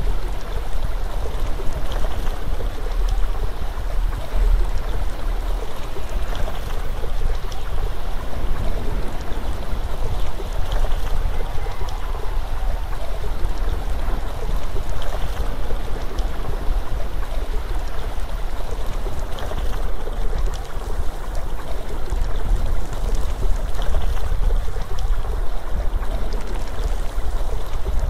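Steady outdoor water-and-wind ambience: an even rushing noise with a strong low rumble that does not change.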